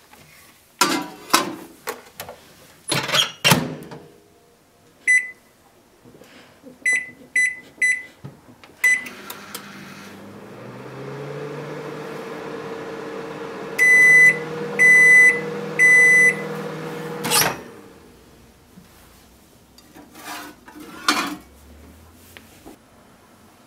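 Daewoo combination microwave oven in use. The door shuts with a few knocks, and the control buttons are pressed with short beeps. The oven then runs with a steady hum, and three loud beeps about a second apart signal the end of the cycle. The door opens with a clunk, followed by a little clatter.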